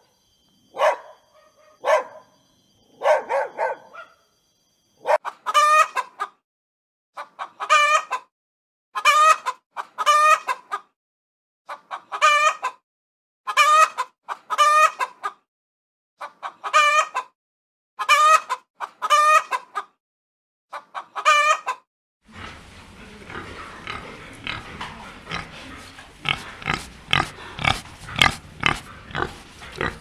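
A dog barks three or four times. Then a hen calls over and over, one drawn-out cluck about every second. From about 22 seconds in, a barnful of pigs grunts in a dense, continuous jumble.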